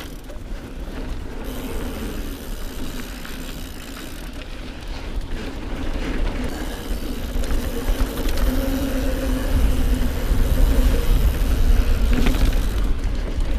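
Mountain bike riding fast on a dirt singletrack: the tyres hum and rumble on the packed dirt, with small rattles and clicks from the bike and wind buffeting the camera microphone. It grows louder in the second half, with a short cluster of knocks near the end.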